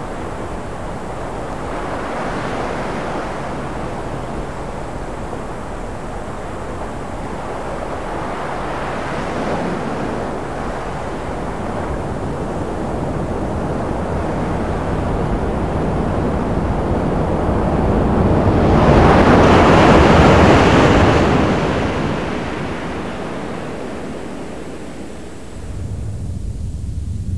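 Sea surf washing onto a sandy beach, a steady rush that swells and falls several times, its biggest surge about two-thirds of the way through before it eases off near the end.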